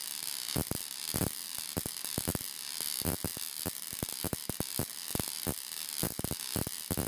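High-voltage sparks from a Ruhmkorff induction coil arcing across a Jacob's ladder, crackling as a steady hiss broken by irregular sharp snaps several times a second.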